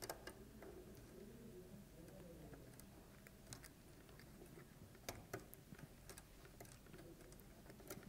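Near silence broken by a few faint, sharp plastic clicks, the clearest two close together about five seconds in: wiring-harness connectors being handled and pushed into the back of a car multimedia head unit.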